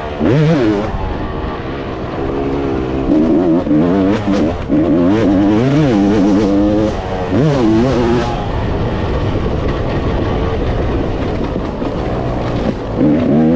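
Motocross dirt bike engine being ridden hard, its revs climbing and dropping again and again as the rider works the throttle and shifts.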